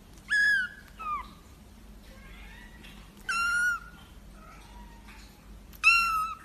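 Kitten meowing: three high, thin mews of about half a second each, near the start, in the middle and near the end, with a short falling squeak just after the first.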